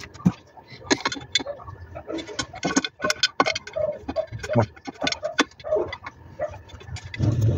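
Hand tools clinking and clicking against metal engine parts while bolts are worked loose: a rapid, irregular run of sharp metallic clicks. Near the end a louder low hum begins.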